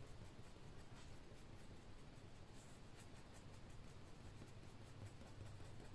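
Faint scratching of a black fine-liner pen on watercolour paper as short fur strokes are drawn, over a low steady hum.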